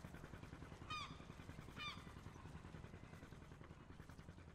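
Two faint honking bird calls about a second apart, over a low steady rumble.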